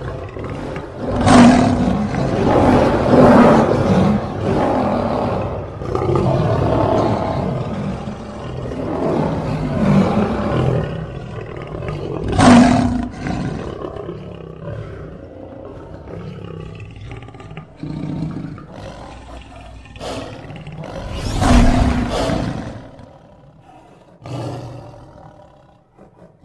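Lion roar sound effects: a series of deep roars and growls. The loudest roars start about a second in, about halfway through, and a few seconds before the end.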